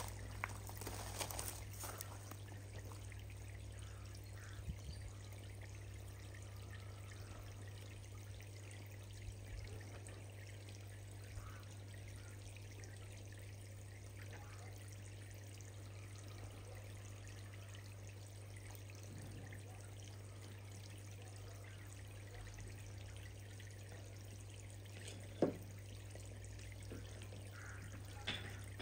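Pond water trickling steadily, with air bubbles from the aerator surfacing, over a low steady hum. A single sharp tap sounds near the end.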